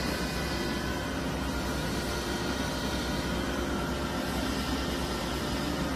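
Hyundai WIA KBN-135 CNC horizontal boring mill's spindle running at a steady speed: an even machine hum with several constant high tones over it.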